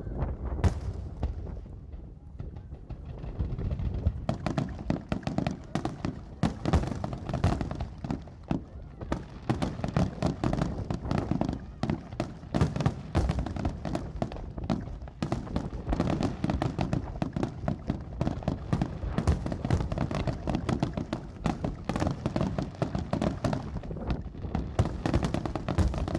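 Fireworks display: a rapid, dense string of aerial shell bursts and crackling bangs, sparser for the first few seconds and then almost continuous.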